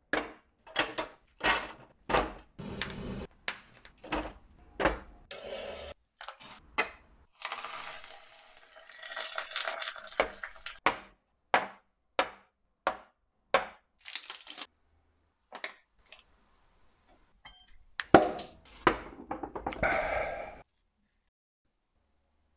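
A long series of separate clanks, knocks and clinks as metal and glass kitchenware is handled and set down, starting with a perforated steel stove frame and then glass bowls. Two longer stretches of rough noise come in between, and the sounds stop shortly before the end.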